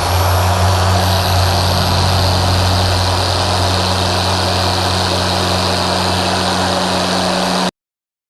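Griot's Garage G8 dual-action polisher running steadily, buffing compound into the paint with a microfiber pad, a low motor hum with a thin high whine; it cuts off suddenly near the end.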